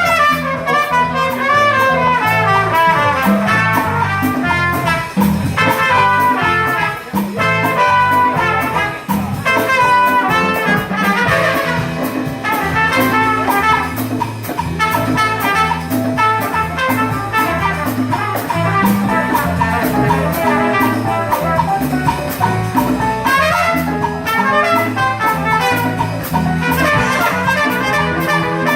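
Trumpet playing a jazz melody live over a backing of bass and drums.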